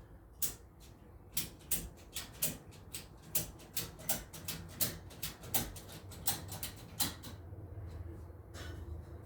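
A run of sharp clicks or knocks, about two to three a second, stopping about seven seconds in, over a steady low hum.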